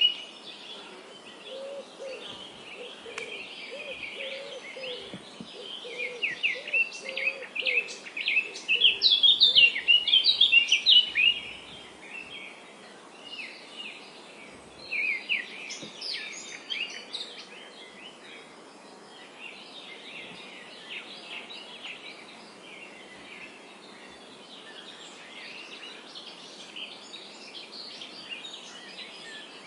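Several small birds chirping and trilling over a steady background hiss, busiest and loudest in the first ten seconds or so, with a lower repeated call underneath during that stretch; after that the chirping thins out and goes quieter.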